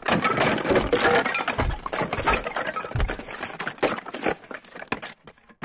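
Dense clattering and cracking: many sharp clicks and knocks in quick succession, thinning out about five seconds in.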